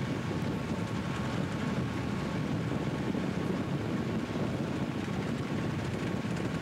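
Steady rumble of Southern Pacific diesel freight locomotives running alongside, mixed with the road and wind noise of a car pacing the train.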